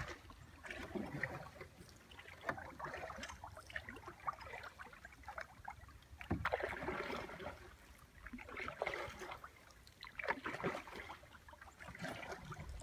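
Kayak paddle dipping and pulling through still water in a slow stroke every two to three seconds, with splashing and dripping from the blades between strokes.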